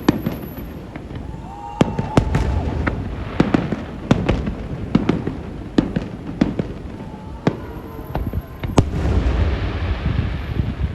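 Fireworks display: a rapid, irregular string of sharp bangs and cracks over a deep rumbling of booms, with stretches of crackling hiss about three seconds in and again near the end.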